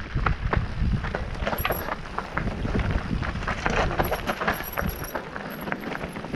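Mountain bike riding over rough, rocky ground: rapid clatter and rattling of the tyres and bike over stones, with wind rumbling on the microphone.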